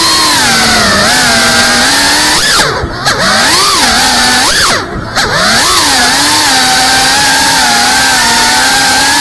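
Brushless motors and propellers of a GEPRC Cinelog 35 FPV drone whining, heard from its onboard camera, the pitch rising and falling with throttle. The throttle is briefly chopped about three and five seconds in, the whine dipping and swooping back, then it holds a steady pitch near the end.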